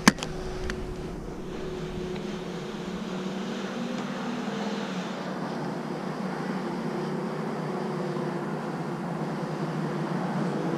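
Steady engine drone with a sharp click right at the start and a few faint clicks in the first seconds; it grows slightly louder toward the end.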